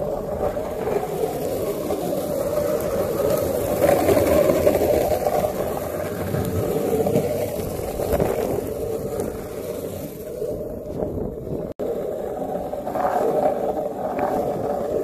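Longboard's urethane wheels rolling over coarse asphalt: a steady rolling rumble, cut off for a moment about twelve seconds in.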